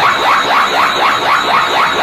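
Anime energy-ball charging sound effect (Goku's Kaioken aura from Dragon Ball Z), looping steadily: a dense, even pulsing made of short falling sweeps repeating about six or seven times a second.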